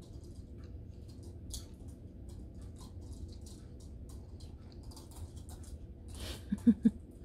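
Morkie puppy gnawing on a small plastic Happy Meal toy: irregular small clicks and taps of teeth on plastic. Near the end come two or three short, loud, low-pitched sounds in quick succession.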